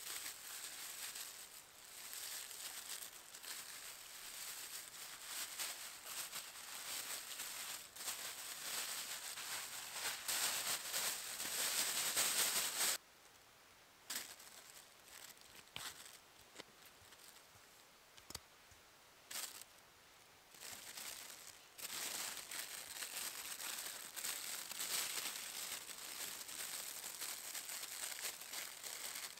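Foil crinkling and rustling as it is handled: a foil-wrapped packet being opened and a foil emergency blanket being spread and worked. The crinkling is loudest just before it drops away abruptly near the middle, stays faint with a few small clicks for several seconds, then picks up again about two-thirds through.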